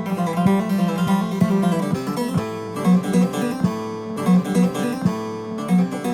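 Instrumental Turkish folk music played on a plucked bağlama (long-necked saz lute): quick picked notes over a steady held low drone.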